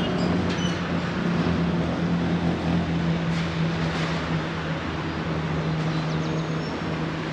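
Steady low engine hum over the even noise of outdoor traffic, its pitch sinking slightly partway through.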